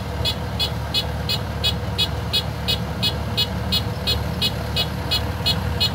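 Kubota DC-105X combine harvester running steadily, with a sharp high-pitched ticking repeating evenly about three times a second over the engine hum.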